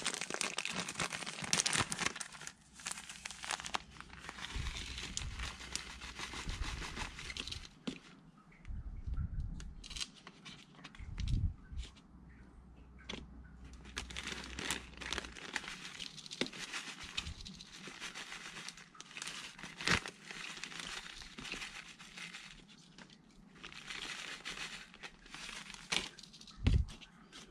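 Clear plastic bag of potting soil crinkling as it is handled and tipped, with soil spilling into a thin plastic cup. The rustling comes on and off, with scattered small clicks.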